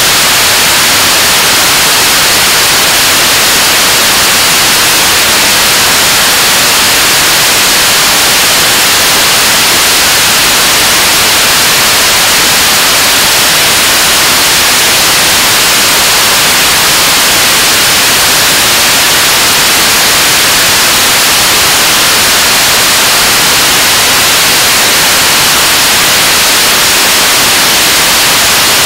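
KSLV-II 7-tonne-class liquid-propellant (LOX/kerosene) rocket engine firing steadily in a long-duration ground hot-fire test: a loud, even rushing noise with no pitch, heaviest in the upper range. It does not change throughout, the sign of steady-state thrust in mid-burn.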